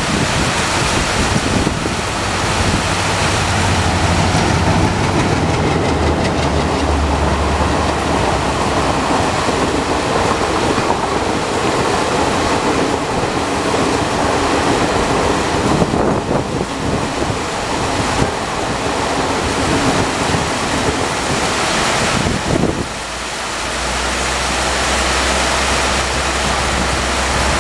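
A WDM-3A diesel locomotive's V16 engine runs with a steady low drone as it hauls a passenger train past, the drone strongest in roughly the first third. After it, the coaches roll by under a steady hiss of heavy rain.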